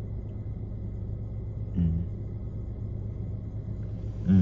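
Steady low rumble of an idling car, with a short faint voice about two seconds in.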